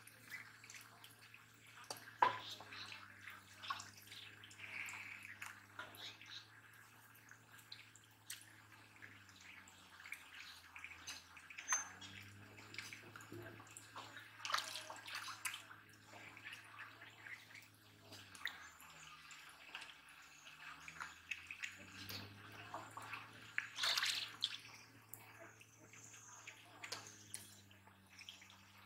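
Hands sloshing and splashing in shallow muddy water, with irregular small splashes and drips.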